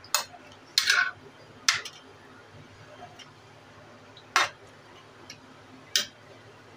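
Metal spoon clinking and scraping against a kadhai while stirring raw mango pieces in curry: about six sharp clinks at uneven intervals, a cluster of three in the first two seconds.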